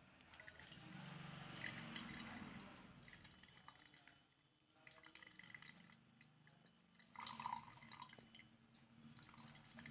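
Juice trickling and dripping into an aluminium pot as a wet cotton cloth full of grated ash gourd is wrung by hand, faint throughout. It is a little louder for a couple of seconds early on and in a brief patch near the end.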